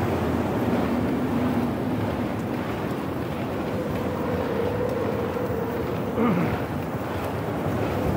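Wind rushing over the microphone of a moving bicycle, mixed with road noise from passing traffic. About six seconds in there is a short falling whine.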